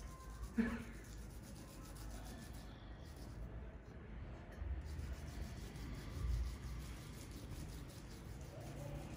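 Half a lemon coated in spice mix rubbed over the kernels of a boiled corn cob, a soft, uneven rubbing.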